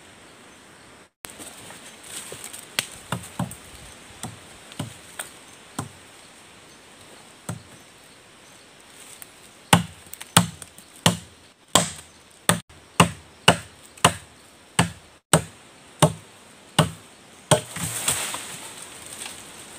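Machete chopping into a sapling's trunk: a few lighter knocks, then a steady run of about a dozen sharp strikes, roughly three every two seconds, with a rustle of branches near the end.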